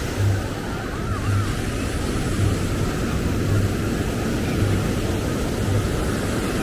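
Steady low rumble of outdoor ambience, with surf, passing traffic and wind on the microphone blended together, and a soft low thump about once a second.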